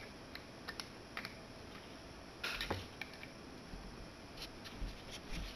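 Faint, scattered small metallic clicks and scrapes of a screwdriver backing a screw out of a Singer 66/99 sewing machine's bobbin winder, with a louder cluster of clicks about halfway through.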